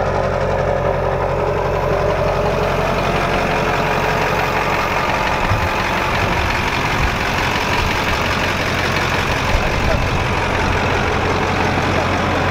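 A pickup truck's LB7 Duramax 6.6-litre V8 turbodiesel idling steadily.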